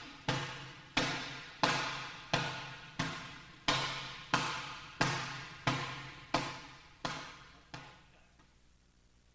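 Hand striking down repeatedly on an Iron Palm training bag, about three sharp slaps every two seconds, each followed by a ringing tail. The strikes stop about eight seconds in and the last one dies away.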